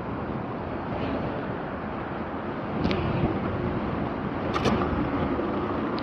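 Electric unicycle rolling over a gravel path: a steady rush of wind on the microphone and tyre noise, with two short clicks around the middle.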